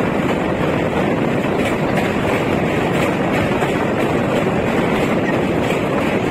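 Express passenger train running over a steel truss railway bridge, heard from an open coach door: loud, steady running noise of wheels on rails and the bridge girders, with faint regular ticks through it.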